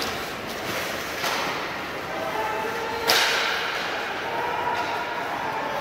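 Sharp slaps and thuds of a basketball game in a reverberant gymnasium, with the loudest strike about three seconds in, over steady crowd and court noise.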